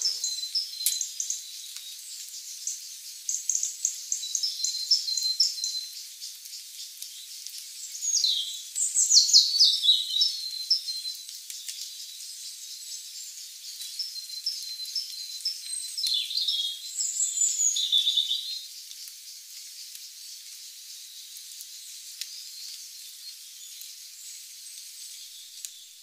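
Forest birds chirping and calling over a steady, high insect trill. Louder sweeping, falling bird calls come about eight seconds in and again around sixteen to eighteen seconds.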